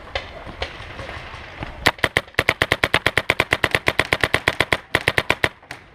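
Paintball marker firing a rapid string of shots, about ten a second, for three to four seconds. A few single pops come before it.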